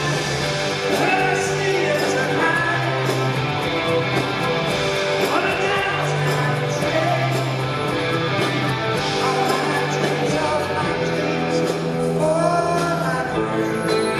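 Live rock band playing with singing and electric guitar over long held bass notes.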